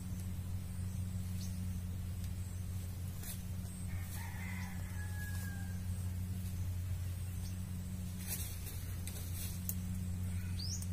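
A rooster crows once, about four seconds in, over a louder steady low hum, with a few sharp clicks.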